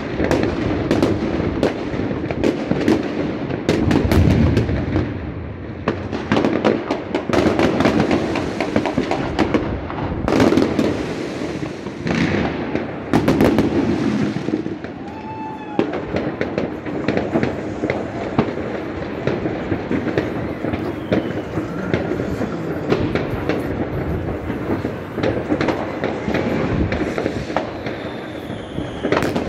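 Many fireworks going off at once: constant crackling and banging from rockets and firecrackers. A few whistles come about halfway through and again near the end.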